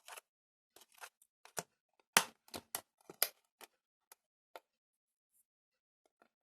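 A string of sharp, irregular clicks and taps, about a dozen, the loudest about two to three seconds in, then a few seconds of near quiet.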